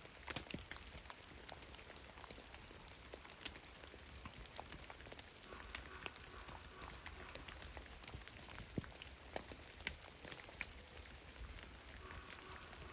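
Meltwater drops falling from snow-laden forest branches, landing as scattered, irregular ticks and taps, a few sharper than the rest, over a faint steady background hiss.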